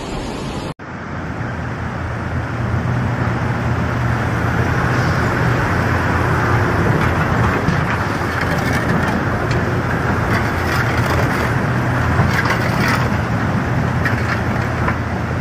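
Loud, steady roar of a swollen, muddy river in flood rushing past.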